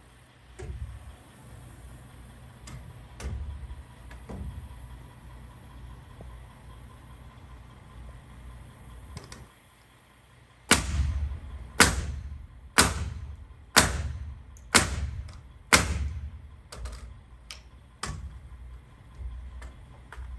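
Hammer blows, about one a second: a run of six loud strikes starting about halfway through, then several lighter taps. Before them there is a low rumble with a few faint knocks.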